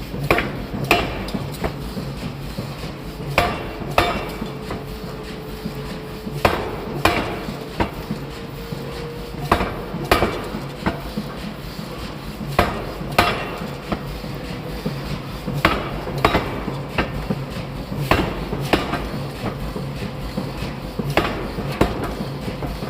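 A hammer striking metal about twenty times, the blows mostly in quick groups of two or three with short pauses between, over a faint steady hum.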